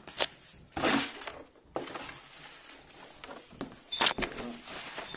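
A cardboard box and its packing being handled: scattered rustles and knocks, the loudest about a second in and again about four seconds in.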